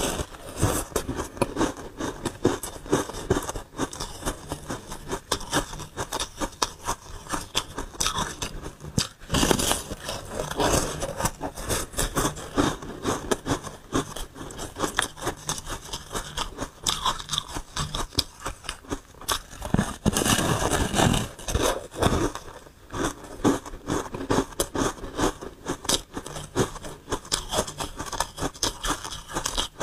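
Soft, frosty ice being bitten and chewed close up: a steady run of fine, crackly crunches, with louder bites near the start, about ten seconds in and about twenty seconds in.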